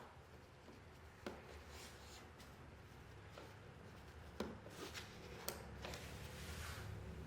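Faint handling of plastic parts, with a few sharp clicks spread over several seconds, the loudest about halfway through, over a low steady hum: the electrical connector being pushed back onto a Bosch dishwasher's regeneration valve.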